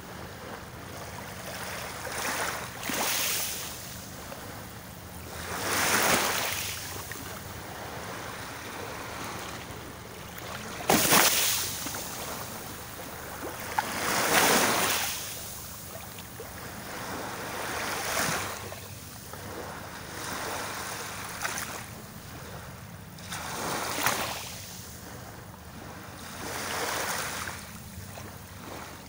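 Small sea waves washing onto a rocky shore, each wash swelling and fading every few seconds, with one sudden louder burst about eleven seconds in.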